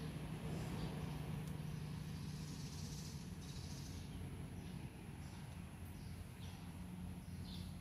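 Outdoor ambience: birds chirping in short calls every half second or so, over a steady low hum and a thin constant high tone.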